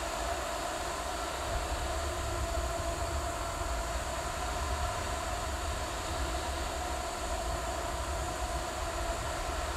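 Steady mechanical rumble with a faint hum above it, even throughout with no distinct knocks or changes: machinery running.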